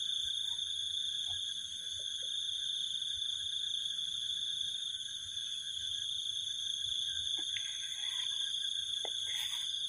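Steady chorus of crickets and other insects, a continuous high-pitched ringing, with a few faint short calls scattered through it.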